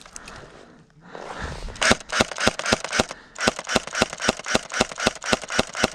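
HK UMP45 airsoft gun firing rapid strings of shots, about six or seven a second, starting about two seconds in, with a brief break partway through. The gun is having magazine feeding problems.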